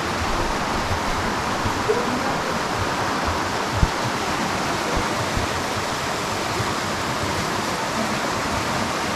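Tiered mountain waterfall running: a steady rush of falling and splashing water. A few brief low thumps come through underneath.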